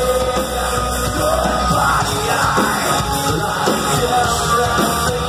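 Heavy metal band playing live at full volume: guitars, drums and vocals.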